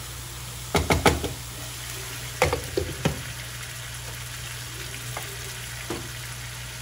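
Chicken pieces shallow-frying in oil, a steady sizzle, with a few sharp knocks of a utensil against the pan, the loudest cluster about a second in.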